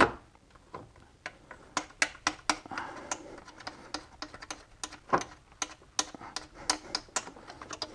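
Hand ratchet wrench clicking in short, irregular runs of sharp ticks as it turns out a bolt holding the engine's coolant pipe.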